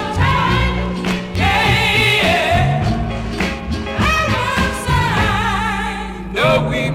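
1960s soul record playing: voices singing over a band with bass and a steady drum beat.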